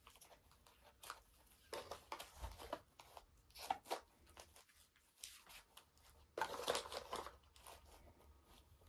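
Faint handling sounds of shotgun shells being pushed into a new, tight shell holder: irregular rustling, crinkling and clicks, with two louder scraping stretches about two seconds and seven seconds in.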